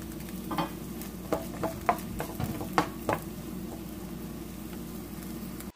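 Chopped onion sizzling in oil in a frying pan, with a utensil clicking against the pan as it is stirred, several clicks in the first three seconds.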